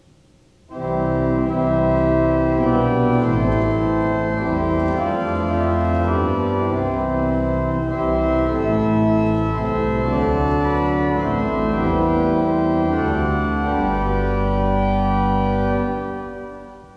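Church organ playing a short introduction of held chords over a deep pedal bass, the chords changing every second or two and dying away near the end, leading into the choir's canticle after the first lesson.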